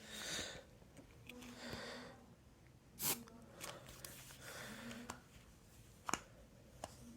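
Faint handling noises: a few short sharp clicks, about three seconds in, near six seconds and again near seven seconds, with soft breaths and rustle between. No smoke alarm is sounding.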